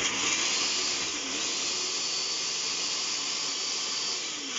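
Electric kitchen blender starting up and running steadily, grinding a cooked onion-and-tomato masala into a paste. Its motor pitch dips briefly a couple of times as the load shifts.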